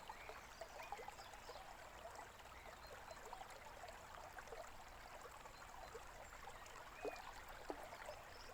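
Faint, steady babble of a small stream trickling over stones, with a few soft bird chirps here and there.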